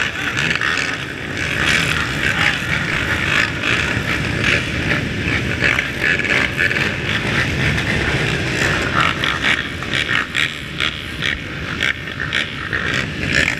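Several ATV engines running at once nearby, a steady mixed mechanical drone.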